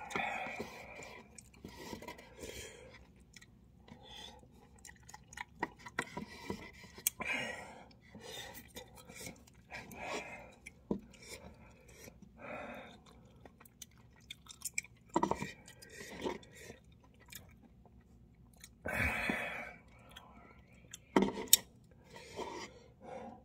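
Close-up chewing of instant cup ramen noodles: wet mouth sounds and lip smacks, irregular, with scattered sharp clicks and a few louder bursts near the end.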